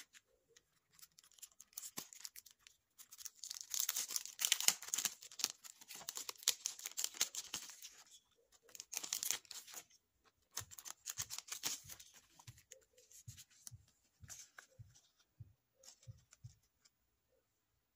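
Clear plastic sticker sleeves and thin sticker sheets crinkling and rustling as they are handled, loudest through the first half. A series of soft, low taps follows in the second half.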